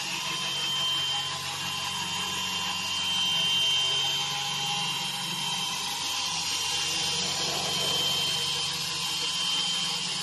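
5-axis CNC router running with its rotary axis, the spindle giving a steady high whine over even cutting noise.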